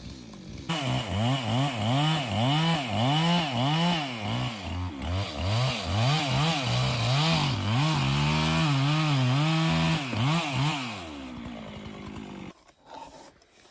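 Chainsaw cutting wood, its engine pitch rising and falling over and over as it revs and bogs in the cut, then holding high for a couple of seconds. It winds down and stops about a second before the end.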